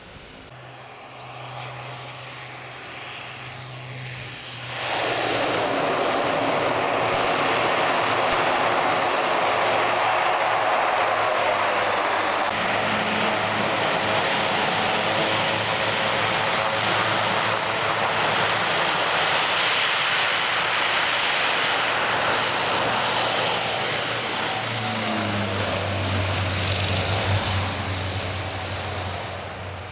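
Twin-engine turboprop airliner at full power on the runway. The engines are fairly quiet at first, jump to a loud steady noise about five seconds in, and ease off near the end.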